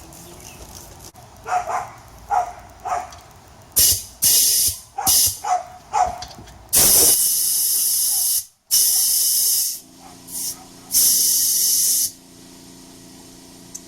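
Compressed air hissing from an air chuck into a new motorcycle tire, first in a few short blasts and then in long bursts of a couple of seconds each, as the bead is being set; the air is escaping past a bead that has not seated. A few short squeaks come before the hissing.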